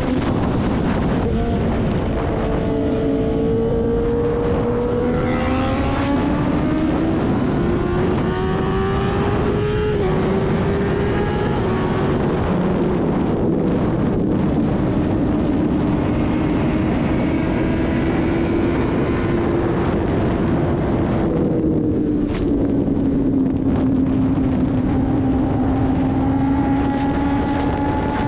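Sport motorcycle engine at highway speed heard from on board, over heavy wind rush. The engine note climbs steadily through the first ten seconds, holds, then settles a little lower after about twenty seconds.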